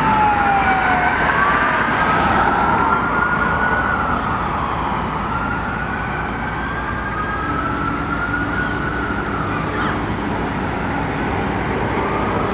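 Sirens of a fire engine and a rescue ambulance wailing together, overlapping slow rising and falling sweeps; the engine's siren is a Federal Signal PowerCall electronic siren. They fade slightly as the vehicles pull away, over traffic noise.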